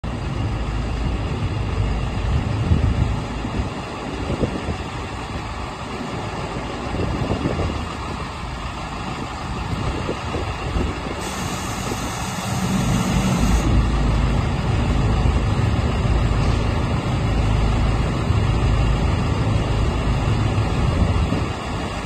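Engine of a 3.5 cubic-metre self-loading concrete mixer running steadily, getting louder from about halfway through.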